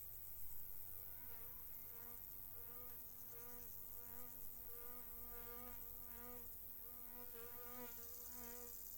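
A flying insect buzzing close by, its pitch wavering as it moves about, from about a second in. Crickets chirr steadily at a high pitch behind it.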